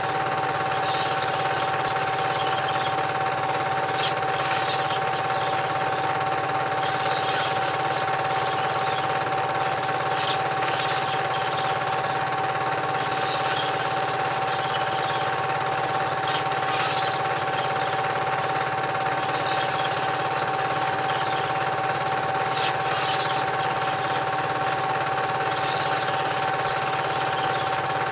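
Cine film projector running: a steady mechanical whirr and rapid clatter with a constant high hum, and a light tick every few seconds.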